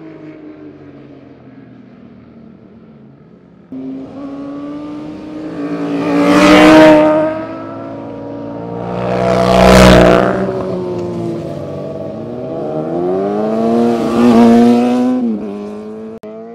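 Sportbike engines passing close one after another, revving hard through the corner. The sound is faint at first and jumps louder a few seconds in, then three loud pass-bys follow, with engine pitch dropping as each bike goes by and rising as a bike accelerates out near the end.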